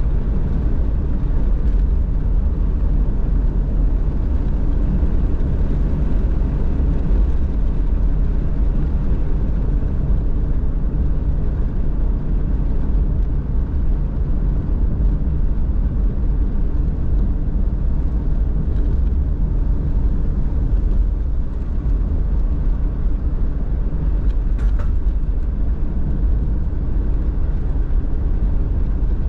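A car driving steadily, with continuous low engine and road rumble. There is a single brief click late on.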